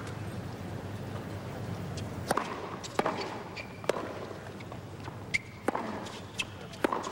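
Tennis rally on a hard court: a serve, then sharp pops of racquets striking the ball and ball bounces, roughly every half second to a second, starting about two seconds in, over a low steady background hum.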